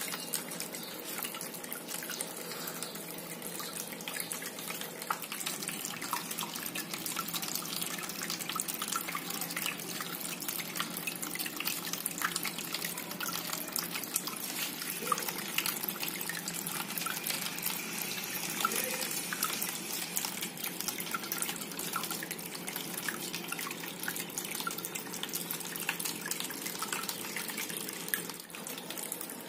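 Water running and splashing steadily, with many small drops and splashes.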